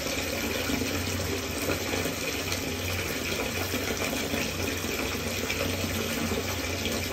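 Bathtub tap running steadily, pouring water into foamy bathwater.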